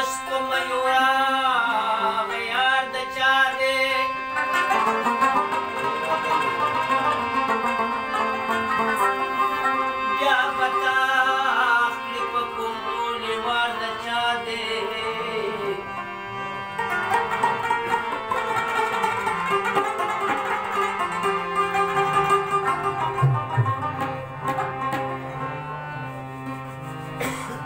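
Pashto ghazal music played live on rubab, harmonium and tabla: the plucked rubab carries the melody over held harmonium notes, with tabla drumming.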